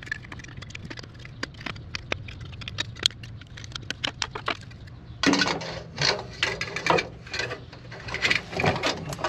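Small metal parts clinking and rattling as the exhaust clamp and its nuts and bolts are handled: scattered light ticks at first, then busier, louder clattering about five seconds in. A steady low hum runs underneath.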